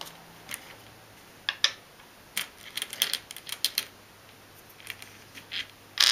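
Glass playing gems clicking and clinking as they are picked from a tray of gems and set down on a hardwood game board: a run of short, sharp clicks at irregular spacing, some in quick clusters.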